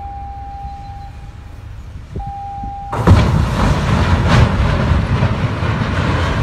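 A steady horn tone sounds twice over a low rumble. About three seconds in, a sudden loud crunching and grinding begins as the bow of one steel-hulled cargo ship rams into the side of another, and it goes on as a heavy scraping rumble while the hulls push together.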